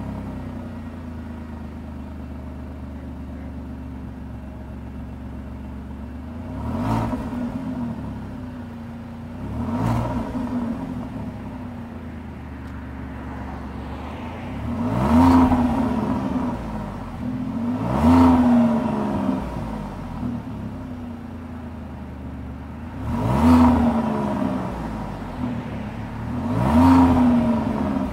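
2017 Alfa Romeo Giulia Quadrifoglio's 2.9-litre twin-turbo V6 exhaust at a fast idle just after a cold start, free-revved six times. Each rev rises quickly and falls back to idle, and the last four are the loudest.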